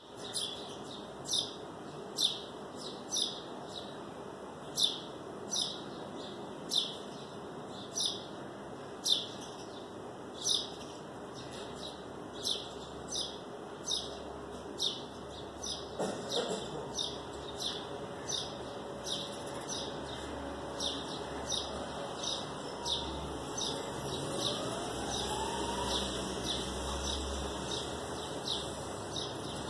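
A small bird chirping over and over: short, high chirps that sweep downward, about one or two a second. A low hum rises underneath in the second half.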